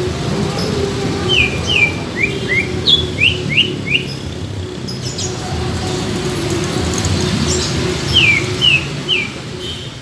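Cucak ijo (leafbird) calling: a quick run of short, falling whistled notes starting about a second in, then three more near the end. A steady low hum runs underneath.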